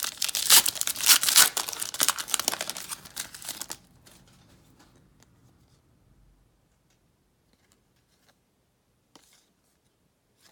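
A trading-card pack wrapper being torn open and crinkled, loud for the first few seconds, then stopping, leaving only a few faint ticks as the cards are handled.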